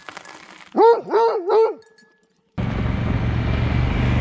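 A dog gives three quick yelping barks, each rising and falling in pitch, about a second in. Then a steady rumbling noise cuts in abruptly.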